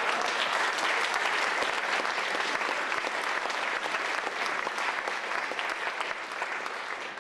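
Audience applauding: a steady wash of many hands clapping that eases off slightly toward the end.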